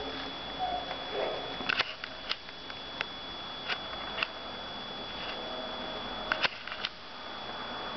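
Small dogs (petits bassets griffons vendéens) nosing through a pile of cut pine branches and dry twigs, giving scattered sharp clicks and snaps. These bunch up about two seconds in and again around six seconds in. Underneath runs the camcorder's steady hiss with a faint high whine.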